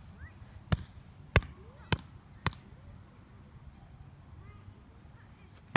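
A volleyball slapped by hand four times, about half a second apart, then struck hard once near the end as it is served overhand.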